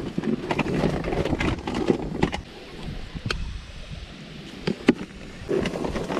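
Rustling and handling noise from a nylon gear bag being rummaged through, with a few sharp clicks, the loudest about five seconds in.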